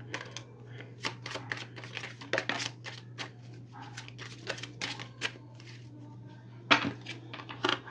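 A tarot deck being shuffled by hand: an irregular run of quick card slaps and flicks, with a louder slap about seven seconds in, over a steady low hum.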